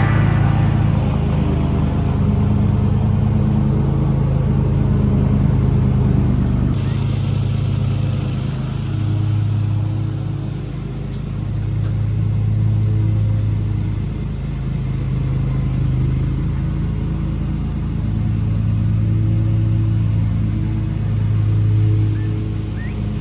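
Engine running steadily, its pitch and loudness rising and falling gently, with an abrupt change in the sound about seven seconds in.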